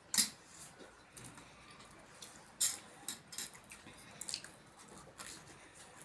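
Eating noises from sambhar-soaked vadas being eaten: a series of short, sharp wet mouth smacks and squishes, the loudest just after the start and about two and a half seconds in.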